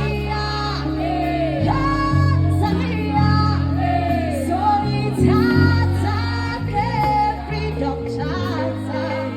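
A song with a woman singing a melody over sustained bass notes that change every second or so.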